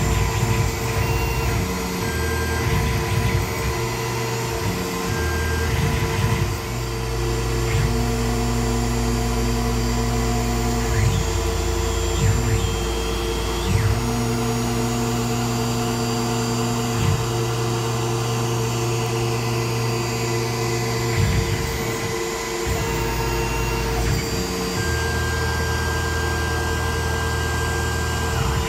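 Tormach PCNC 1100 CNC mill running under flood coolant while chamfering threaded holes: a steady machine hum with lower tones that start, stop and change pitch every few seconds.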